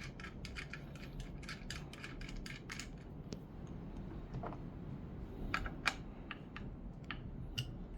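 Light, irregular clicks and taps of plastic and metal pan-handle parts being fitted and screwed onto a non-stick frying pan. Several small clicks a second at first, then fewer and sharper ones, the loudest about six seconds in.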